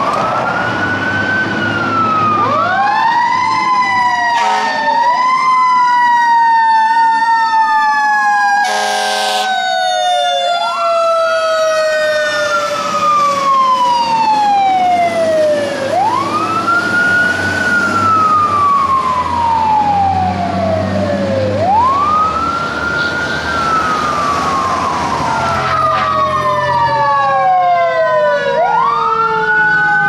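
Fire engine sirens wailing. Each cycle rises quickly and falls away slowly, and a second siren overlaps at a different pitch near the start. Two short air horn blasts come about 4 and 9 seconds in.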